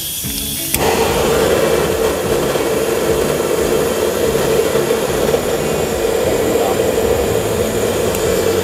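Handheld gas blowtorch burning with a steady rushing hiss, its flame played on a bundle of cut hair; the sound fills out about a second in and cuts off at the very end.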